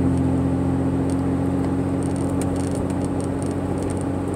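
Steady drone of a car's engine and tyre noise heard inside the cabin while driving.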